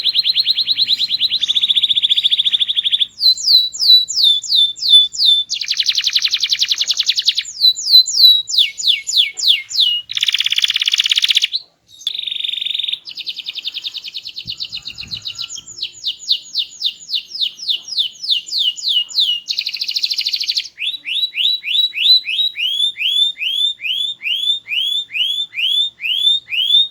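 Domestic canary singing loudly and continuously: fast buzzy trills alternating with runs of quick repeated sweeping notes, about four or five a second, with a short break about twelve seconds in.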